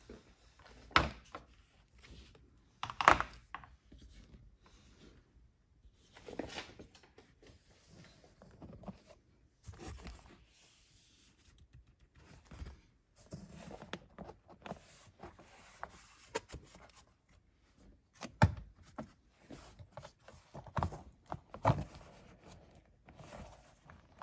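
Plastic door-sill trim being handled and pressed by hand: scattered knocks and clicks of hard plastic, the loudest about a second and three seconds in, with softer rustling and handling noise between.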